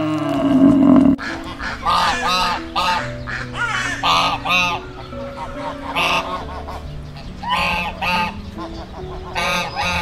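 Mallard ducks quacking, a run of loud calls in clusters of two or three, over background music with held notes. A louder low sound fills the first second and cuts off abruptly.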